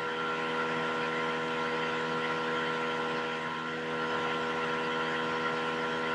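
Steady machine hum made of several fixed tones over a light hiss, holding level throughout.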